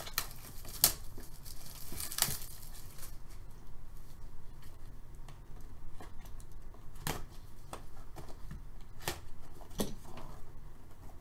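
Plastic shrink wrap being slit with a utility blade and peeled off a cardboard box, with crinkling early on. Later come a few separate sharp clicks and taps as the bare box is handled and its lid opened.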